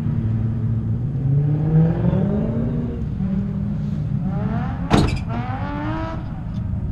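Car engine revving, its pitch climbing in repeated rising sweeps, with one sharp crack about five seconds in.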